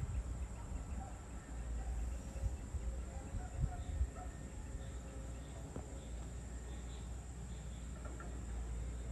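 Evening outdoor ambience: a steady high-pitched insect drone, with faint scattered bird chirps and a low steady rumble underneath.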